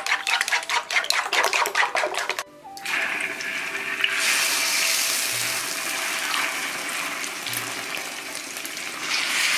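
Chopsticks beating eggs in a ceramic bowl, a rapid run of clicks for about two seconds. Then beaten egg poured into hot oil in a wok sizzles steadily, getting louder about four seconds in as more egg hits the oil.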